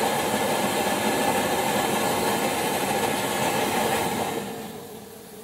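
Liquid-fuel pressure burner of an NVA Kleinküche KK 15/72 field kitchen running with a loud, steady rushing noise, then turned down about four seconds in so the noise fades away to a faint hiss.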